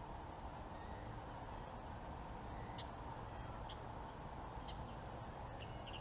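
Quiet outdoor ambience: a faint, steady low rumble with a few short, high bird chirps about a second apart in the middle stretch.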